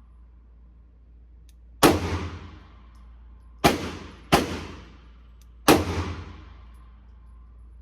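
Four pistol shots at uneven intervals, each a sharp crack followed by a ringing, echoing decay. The first comes about two seconds in, and the second and third come close together.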